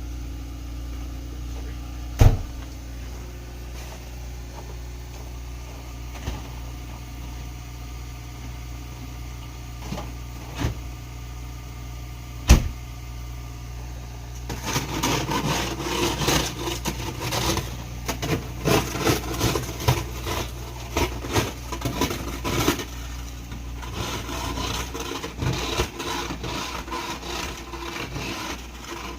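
Car engine idling while it warms up in the cold, a steady low hum. There is a sharp knock a couple of seconds in and another about twelve seconds in, and from about halfway a long run of rapid scraping and clicking.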